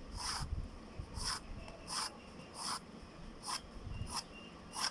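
Pencil shading strokes on paper, a short scratchy rub repeated about seven times at an even pace.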